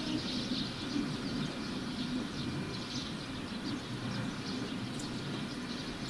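Steady low rumble of outdoor background noise, like distant traffic, with faint short small-bird chirps scattered through it.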